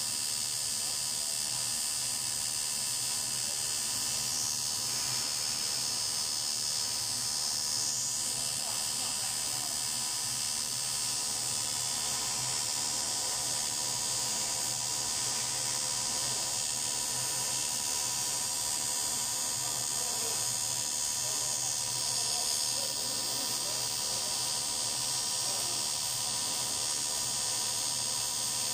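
Two TIG welding arcs of an automatic circular-seam welder burning steadily on an aluminum tank seam: a constant electric buzz with a hiss high up, unbroken throughout.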